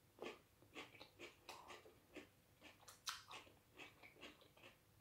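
A person chewing a mouthful of raw cabbage and vegetable salad with the mouth closed: a run of short, soft crunches, about three a second.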